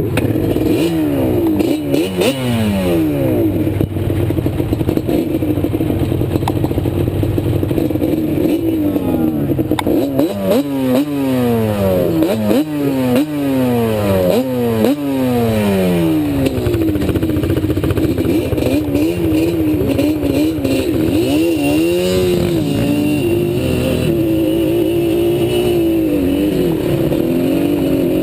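ATV engine revving up and dropping back again and again as it is throttled along a trail, the pitch climbing and falling in quick repeated sweeps, then running steadier with small rises and dips near the end. A few short knocks from the machine over rough ground.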